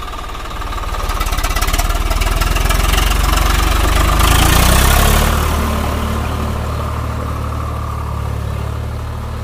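Swaraj 744 FE tractor's three-cylinder diesel engine revving up under heavy load as it pulls itself out of deep mud. It builds from about half a second in to a peak about halfway through, with a brief loud rushing hiss at the top, then settles to a steady run as the tractor moves off.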